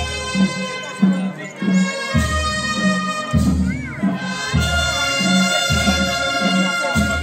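Live marching band playing a slow march, with sustained brass and woodwind chords over a bass drum beat about every second and a quarter.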